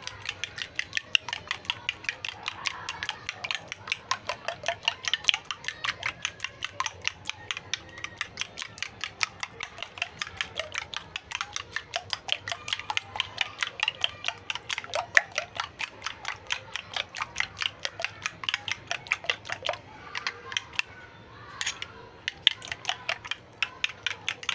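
Raw eggs being beaten with a metal spoon in a ceramic bowl: rapid, even clinks of the spoon against the bowl, about five a second, with a brief pause about twenty seconds in.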